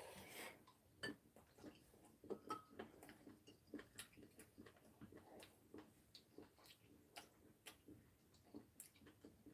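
Quiet eating sounds: faint, irregular little clicks from chewing and from metal spoons touching ceramic bowls, about two or three a second.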